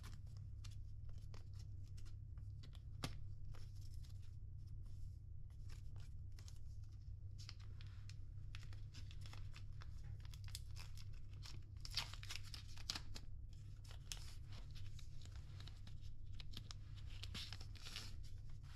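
Paper sleeve of a packaged hotel comb being torn open and crinkled by hand: irregular tearing and crackling, busiest about halfway through and again near the end, over a steady low hum.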